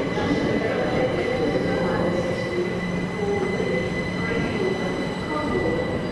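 Heavy freight train rolling past, with a steady high-pitched squeal from its wheels over the rumble of the wagons.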